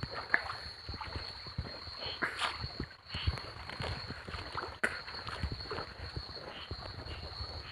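Shallow river water sloshing and splashing around someone wading, with scattered small knocks and clicks, over a steady high-pitched whine.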